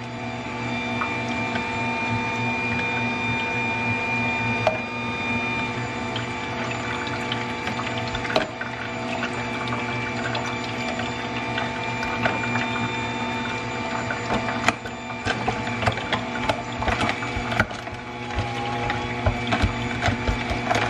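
Aobosi cold press slow juicer running with a steady motor hum while carrots and other produce are crushed inside it, giving sharp cracks and crunches that come thick and fast near the end.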